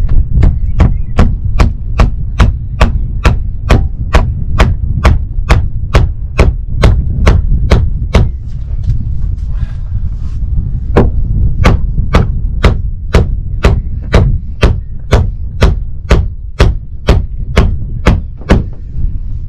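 Hammer driving copper nails into a wooden boat's hull planking: steady, sharp blows about two to three a second, breaking off for a couple of seconds about halfway through, then resuming. Wind rumbles on the microphone underneath.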